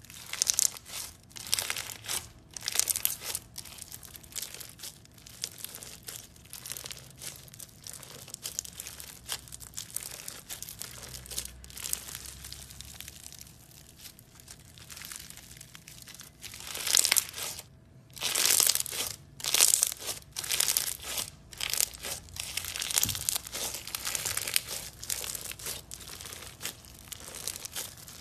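Orange bead-filled slime being squeezed, folded and stretched by hand, crunching and crackling in irregular bursts; the densest, loudest crackling comes about two-thirds of the way through.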